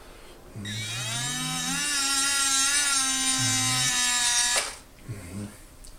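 Small electric gear motors of an Elenco OWI ATR tracked robot kit, converted to radio control, whining as they run. They spin up with a rising pitch about half a second in, hold a wavering whine for about four seconds, then cut off suddenly.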